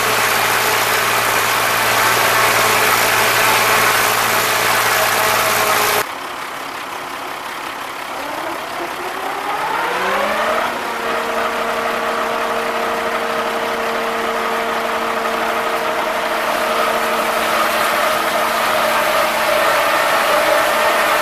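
Vintage tractor engine running steadily close by. After an abrupt change about six seconds in, a tractor engine runs quieter at first, then revs up over about two seconds and holds a steady higher speed.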